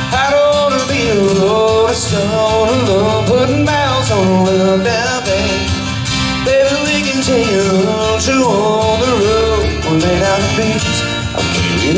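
Live country song: a man singing, holding long notes, over a strummed acoustic guitar, amplified through a PA.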